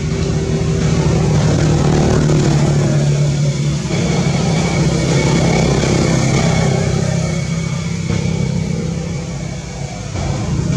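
A motor engine running steadily, with a low, even hum that swells and eases slightly.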